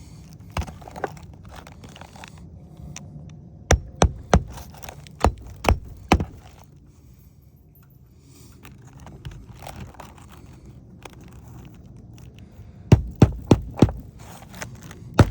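Hammer blows driving roofing nails by hand through an asphalt shingle into the roof deck: sharp strikes in short groups, with a quiet pause in the middle and another run of blows near the end.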